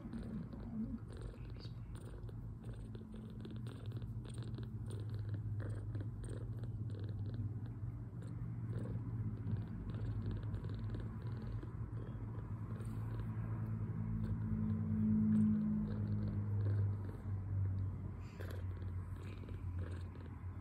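Two-week-old kitten purring steadily while stroked under the chin, a low continuous rumble that grows loudest about three-quarters of the way through. The kitten is milk-drunk, content and full after a feed.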